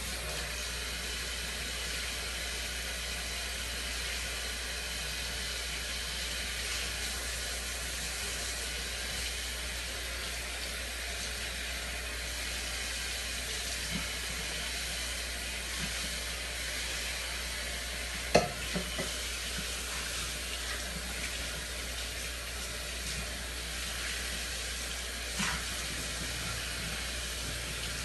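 Washing dishes by hand at a sink: a steady hiss of running tap water, with a few sharp clinks of dishes, the loudest about 18 seconds in.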